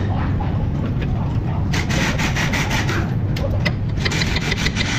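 Scraping and rubbing of the steel upper control arm being worked into its frame mount, with a run of sharp clicks near the end as it seats, over a steady low rumble.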